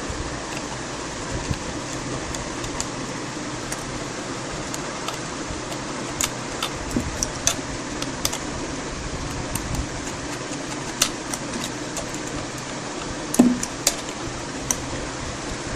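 Small metallic clicks and taps of a screwdriver and tiny screws being worked out of a laptop's plastic screen housing, scattered irregularly, with a louder knock about 13 seconds in. A steady fan or air-conditioner hiss runs underneath.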